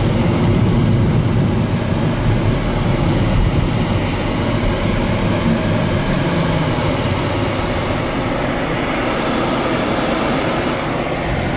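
Steady rumble of a car driving along a highway, road and engine noise heard from inside the cabin.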